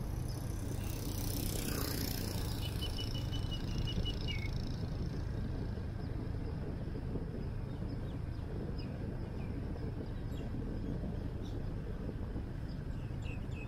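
Motorbike riding downhill on a paved road: a steady low rumble with wind noise on the microphone and a short hiss of wind about a second in. A thin high whistle sounds for about a second and a half around three seconds in.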